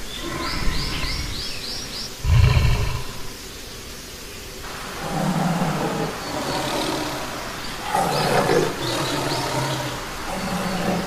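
Big cat roaring and growling. A short, loud low call comes about two seconds in, then several longer growls follow. A quick run of high chirps sounds about a second in.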